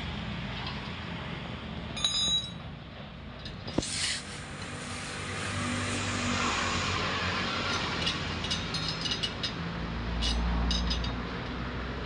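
Motor vehicle engines running and passing, swelling about halfway through and again near the end, with small metallic clinks and clicks as brake-disc bolts are handled on a spoked wheel hub.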